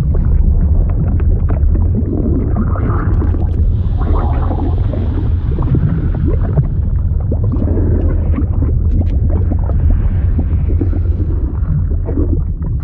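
Fluid sound effect: a deep, steady rumble with irregular gurgling and bubbling over it, like churning water heard underwater.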